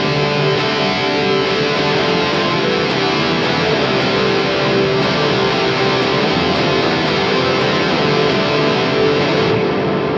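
Overdriven electric guitar, a Gibson Les Paul, played through an EarthQuaker Devices Dispatch Master reverb and delay pedal with every control at maximum: a dense, continuous wash of overlapping delay repeats and long reverb tails, described as about as crazy as it gets.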